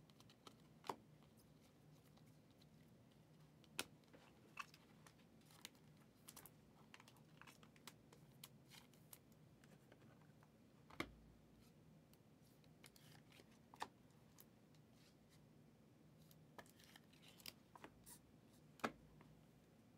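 Faint, scattered clicks and light taps of Panini Prizm football cards being flipped through in the hand and set down on stacks, with a louder tap every few seconds.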